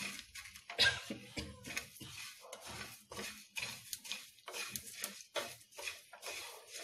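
Coriander seeds being dry-roasted in a pan: a metal spatula stirring and scraping them around the dry pan, the seeds rustling and rattling in quick, irregular strokes, several a second.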